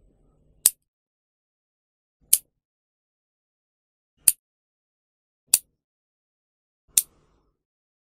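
Nail clipper snapping shut five times, one sharp click every one to two seconds.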